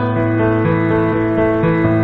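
Instrumental background music with held notes, the bass note changing twice.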